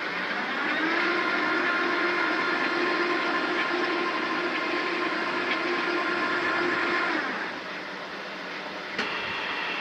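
Woven polypropylene filter-bag welding machine running, with a steady whine over a mechanical hiss that starts about a second in and stops about seven seconds in. A single click comes near the end.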